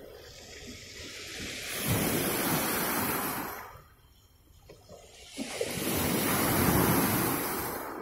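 Black Sea surf breaking and washing up a pebble beach: two surges of waves about four seconds apart, with a quieter lull between them.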